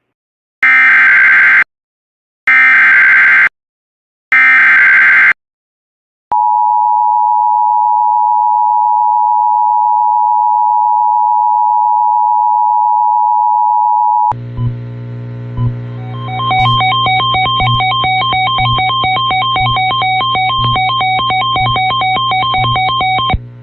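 Emergency Alert System alert tones: three bursts of screeching SAME digital header data, each about a second long, then the two-tone attention signal held steady for about eight seconds. It cuts off sharply and electronic music with a steady beat follows.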